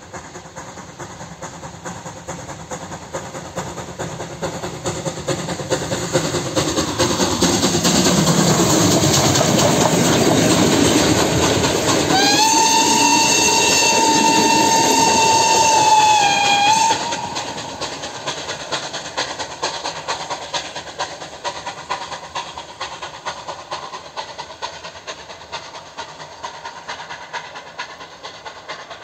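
Ol49-class 2-6-2 steam locomotive and its passenger coaches running past: the train's running noise swells as it nears and passes, then fades as it rolls away. In the middle comes one long steam whistle blast of about four and a half seconds, steady and sagging slightly in pitch just before it cuts off.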